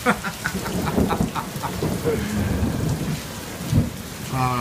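Heavy rain pouring and splashing, with a low rumble of thunder under it and irregular sharp splats from drops striking nearby surfaces.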